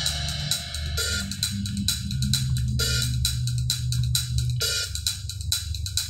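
Music with a steady drum-kit beat, hi-hat and cymbals over a bass line, an MP3 track from a USB stick playing through a Hyundai Mobis HB20 head unit and its speakers.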